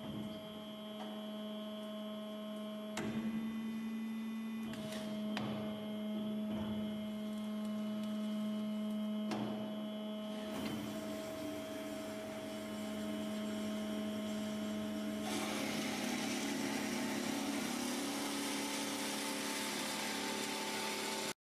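BS 360 CNC band saw running with a steady hum as its saw head swivels between mitre angles, with a few clunks along the way. About three quarters through, a rushing hiss joins the hum, and the sound cuts off abruptly just before the end.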